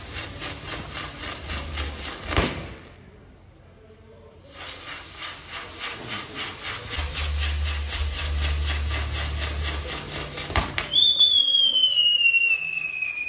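Fireworks castillo burning: rapid, evenly spaced popping that stops for about two seconds a couple of seconds in, then starts again. Near the end a sharp crack sets off a whistle that slowly falls in pitch.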